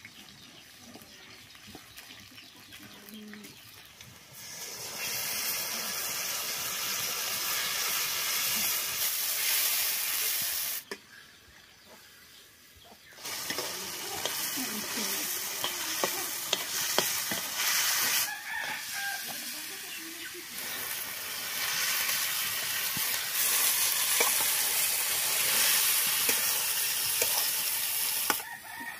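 Goat meat pieces frying in hot oil in a metal kadai, sizzling, with a metal spatula stirring and scraping against the pan. The sizzling starts about four seconds in, drops out for a couple of seconds near the middle, comes back as more meat goes in, and stops shortly before the end.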